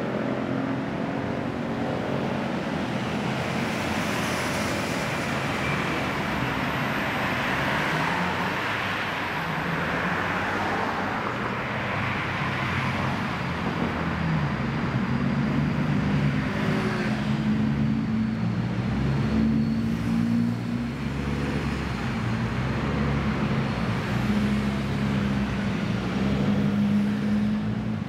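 Traffic on a multi-lane city road: a steady noise of cars passing, with the low hum of engines rising and falling. The engine hum grows stronger about halfway through.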